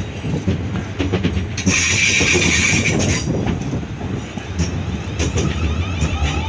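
Class 450 Desiro electric multiple units, three coupled together, running into the platform: the wheels click over rail joints and points, over a steady low hum from the train.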